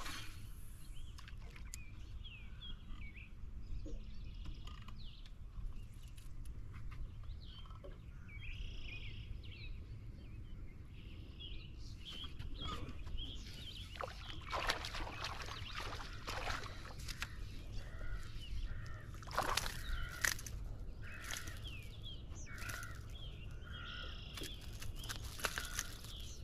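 Birds chirping and calling over a steady low rumble of open-air ambience; about halfway through the chirps and short clicks become busier and sharper.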